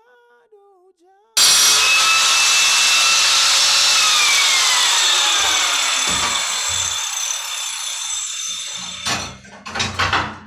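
Power tool cutting, starting abruptly about a second in with a loud, dense whine whose pitch falls steadily as it goes, then dying away near the end, followed by a few short knocks.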